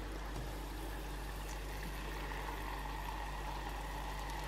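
Hot oil in a small electric deep fat fryer, heated to 140 °C, sizzling steadily around a battered Mars bar that has just gone in.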